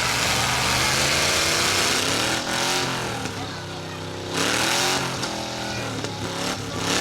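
Demolition derby cars' engines revving, their pitch rising and falling, over a loud noisy din that drops off about two and a half seconds in and comes back briefly about four and a half seconds in.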